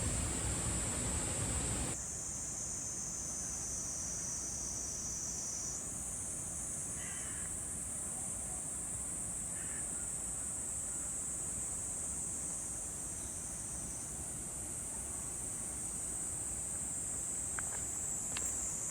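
Steady high-pitched chorus of insects, with a rushing noise in the first two seconds that cuts off suddenly and a few faint chirps partway through.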